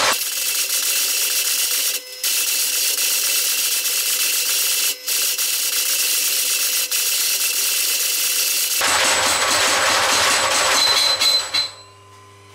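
Homemade motorized leaf-spring power hammer, built around a bicycle wheel, pounding red-hot steel stock, with the blows run together into a dense mechanical rattle by the sped-up footage. The hammering breaks off briefly twice, which fits the uneven, juttery running that the smith puts down to the thick stock or his pressure on the pedal. It stops near the end, leaving a low hum.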